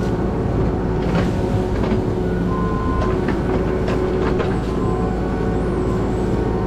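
Kubota mini excavator's diesel engine running steadily under load, with a faint hydraulic whine and scattered sharp cracks and knocks as the machine works at pulling down a dead tree.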